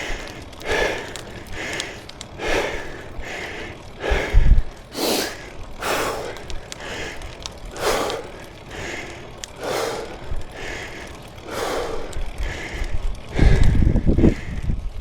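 A cyclist breathing hard and rhythmically under the effort of a steep climb, with about one breath a second. A louder low rumble comes in near the end.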